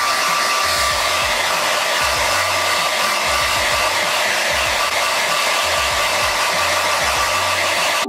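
Hand-held hair dryer running steadily, its rush of air carrying a thin, even motor whine. It cuts off abruptly at the very end.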